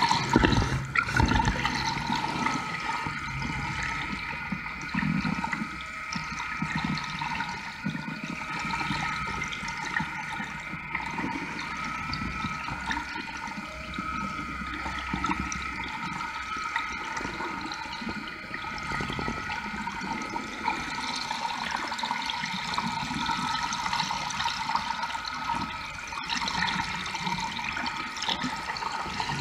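Water rushing steadily past a moving boat, heard underwater, with a steady hum of several even tones from the boat's machinery running through it.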